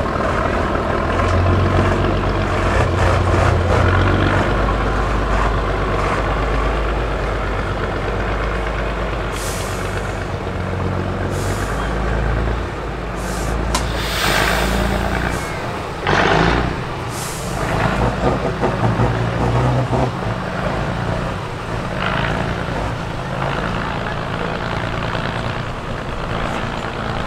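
Tatra 813 8x8 truck's diesel engine working under load as the truck crawls over a steep dirt mound, its level swelling and falling with the throttle. Several short hissing bursts come in around the middle.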